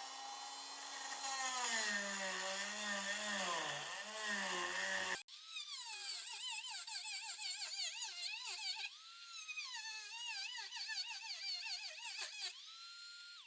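Dremel oscillating multi-tool cutting into wood, its whine dipping and wavering in pitch as the blade bites and rising again as it eases off. The sound changes abruptly about five seconds in. Near the end the tool runs free at a steady higher pitch, then stops.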